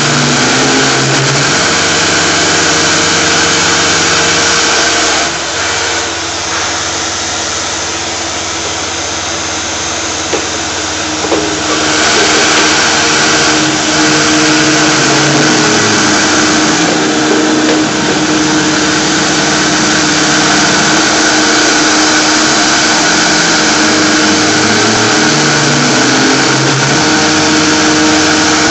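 Shop vacuum running steadily, its nozzle held at the cutter of a Tormach PCNC 1100 CNC mill that is machining a UHMW plastic disc, with the spindle and axis motors under it. The vacuum's hiss drops for several seconds about five seconds in and comes back about twelve seconds in, and low machine hums come and go.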